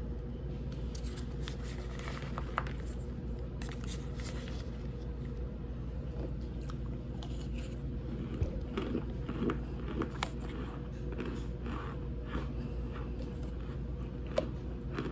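Cold compressed cornstarch being bitten and chewed, giving soft, squeaky crunches in irregular bursts, over a steady low hum.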